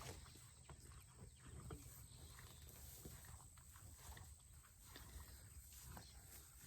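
Near silence: faint scattered rustles and soft clicks from animals close by.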